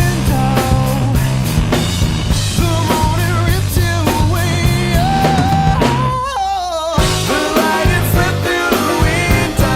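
Music: a song with a drum kit and bass under melodic lines. About six seconds in, the drums and bass drop out for about a second, leaving a wavering held note, then come back in.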